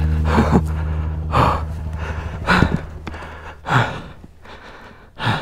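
A person breathing hard, with loud gasping breaths about once a second that grow quieter. Under the first half, a steady low hum fades out.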